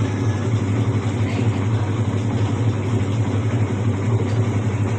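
Top-loading washing machine running with a steady low hum and a whirring noise that holds unchanged.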